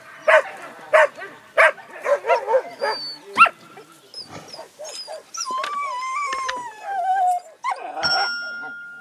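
Laika hunting dogs barking in short sharp barks, several in a row, then yelping, followed by a long whine that falls in pitch. Near the end the sound changes suddenly to a held steady tone.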